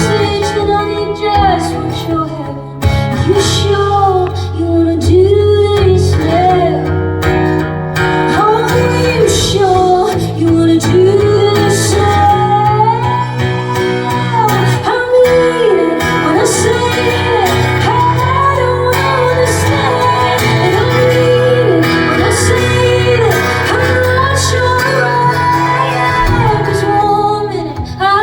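Live band music: guitar and a steady bass line with drum hits, and a singing voice carrying a bending melody over them.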